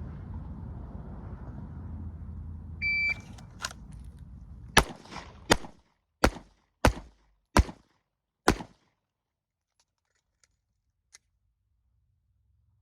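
A shot timer beeps once about three seconds in. Six pistol shots follow over about four seconds, evenly spaced, which empties the six-round magazine for a slide-lock reload. A low steady rumble is heard under the start.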